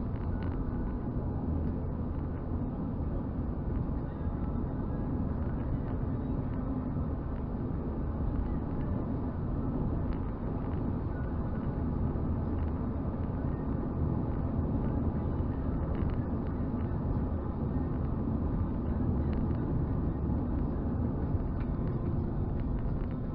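Toyota Celica driving at a steady pace, heard from inside the cabin: a continuous low rumble of engine and tyre noise with no marked changes in pitch.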